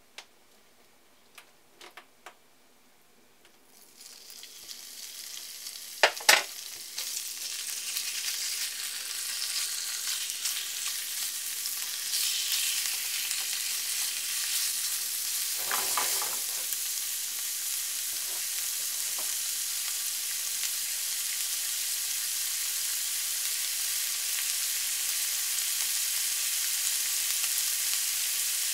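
Thin slices of pork sizzling in hot vegetable oil in a nonstick frying pan. The sizzle starts about four seconds in and grows louder as more meat goes in, then holds steady. A few sharp clicks sound over it, the loudest about six seconds in.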